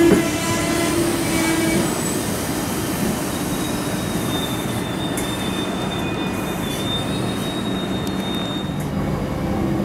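ICE high-speed train rolling slowly through the station with a steady rumble. A pitched hum fades out in the first two seconds, and from about three and a half seconds in the wheels give a thin, high, steady squeal that stops shortly before the end.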